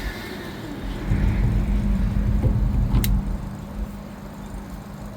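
Wind buffeting the microphone as a gusting low rumble over a steady low hum, with one sharp click about three seconds in.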